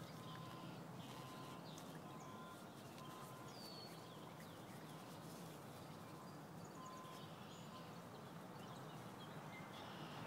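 Faint outdoor background hiss with a few faint, short bird chirps and a faint intermittent high tone.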